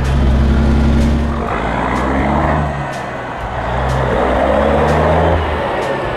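1979 Kenworth W900A semi truck's diesel engine running under way with road noise, loud. The sound eases for about a second around three seconds in, then comes back up.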